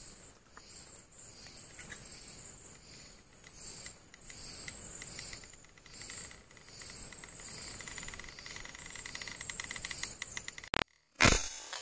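Night insects chirping, with a fast high trill in the second half. Near the end the sound cuts out briefly, then a loud sudden noise.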